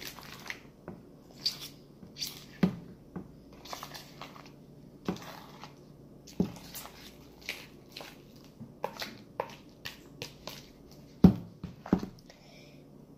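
Hands squishing and pulling sticky homemade glue slime: irregular wet squelches and sharp pops, the loudest about eleven seconds in.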